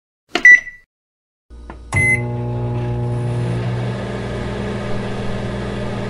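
Microwave oven starting up: a loud click with a short beep about half a second in, another click-beep at about two seconds, then the oven's steady low hum as it runs to heat food.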